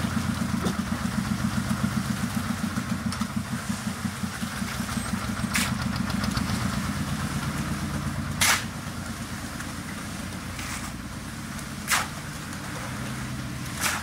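C3 concrete mixer-pump running with a fast pulsing throb as concrete is pushed out through the delivery pipe, with a sharp knock every few seconds in the second half.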